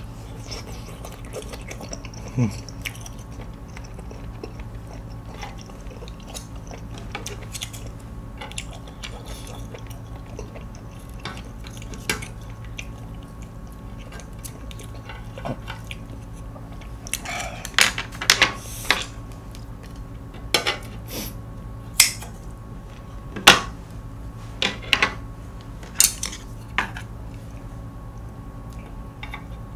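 Metal tongs, kitchen scissors and chopsticks clicking and scraping on a tabletop grill plate as beef is cut and turned. The clicks are scattered and bunch together in the second half, over a steady low hum, with some chewing.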